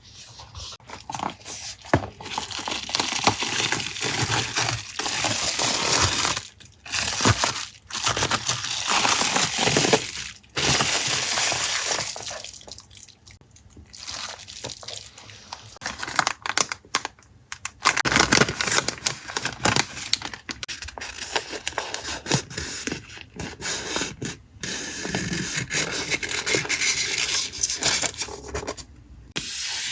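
Paper and plastic packaging being handled and opened, crinkling and rustling in bursts of a few seconds with short pauses and an occasional tear.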